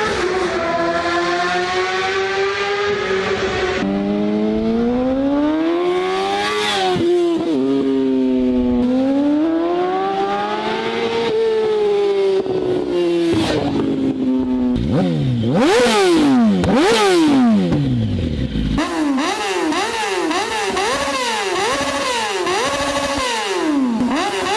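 Motorcycle engine revving, its pitch climbing and falling repeatedly. In the middle come several steep drops in pitch, and near the end quick repeated throttle blips, a little more than one a second.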